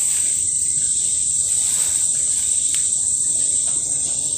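Steady high-pitched insect chorus, one continuous unbroken buzz that stays at the same level.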